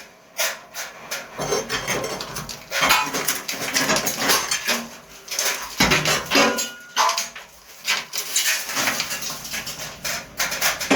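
Hand work on the water pipe and its connectors: irregular knocks, clatter and scraping.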